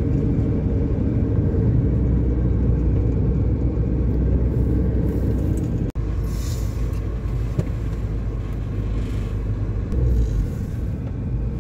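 Car cabin noise while driving: a steady low rumble of engine and tyres on the road, heard from inside the car. It drops out for an instant about six seconds in.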